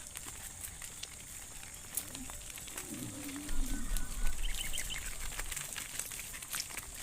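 A cow gives one short, low moo about three seconds in, over a steady high hiss and scattered clicks.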